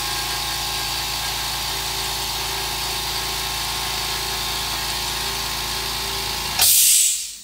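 California Air Tools 4710SQ oil-free 1 HP piston compressor running steadily with a low hum. Near the end it is switched off and a short, loud hiss of air follows, the unloader valve venting the pump.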